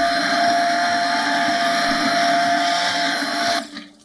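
Stainless handheld immersion blender running steadily as it purees tomato soup in a slow cooker crock, a loud motor sound with one steady pitch; it switches off abruptly near the end.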